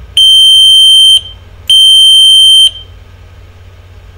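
Electronic beeper giving two loud, steady high-pitched beeps, each about a second long, with about half a second between them.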